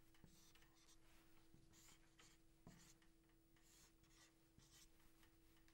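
Dry-erase marker drawing on a whiteboard: faint, irregular strokes and short squeaks, over a steady faint hum.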